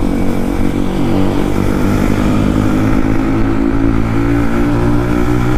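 Yamaha MT-15's single-cylinder engine running through an aftermarket Akrapovic exhaust, held at a fairly steady pitch with slight rises and falls of throttle while riding.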